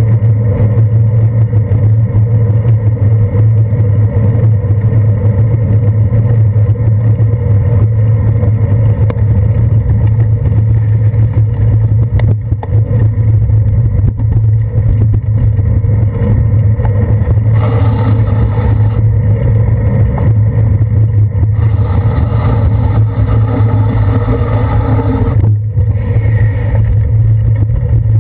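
Steady low rumble of road vibration and wind on a handlebar-mounted camera as a bicycle rides over wet city pavement. A hiss swells twice in the second half, and the sound dips briefly near the end.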